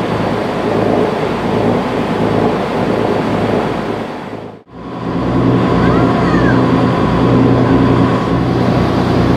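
Fishing boat's engine running under way, with the rushing wash of its wake and wind on the microphone. About halfway through the sound cuts out for a moment, then a steadier engine drone carries on.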